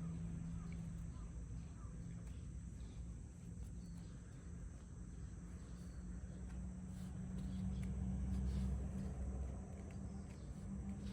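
Quiet outdoor background noise: a steady low hum with a faint, continuous high tone above it, the hum swelling slightly past the middle.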